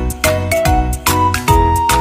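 Cheerful background music with a steady beat and bright melodic notes.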